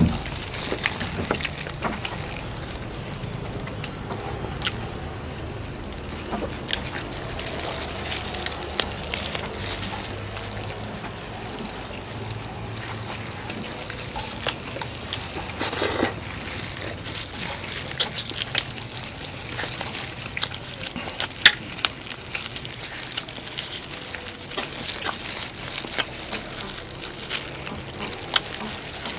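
People eating roast duck: steady wet chewing and smacking with many scattered clicks and crunches, and a few louder snaps of bone or cutlery.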